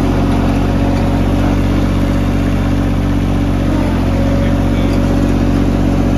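Three-cylinder Vanguard diesel engine of a Toro Wheel Horse 523 DXi ride-on mower running steadily, with a brief dip in its note about four seconds in.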